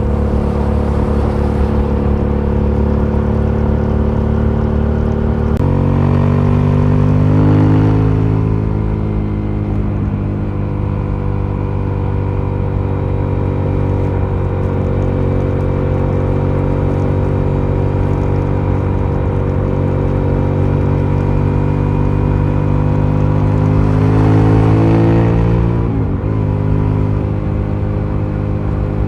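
Aprilia Shiver 750's V-twin engine running through its stock exhaust. It holds a steady note, with the pitch shifting and swelling louder twice, around seven seconds in and again about twenty-five seconds in.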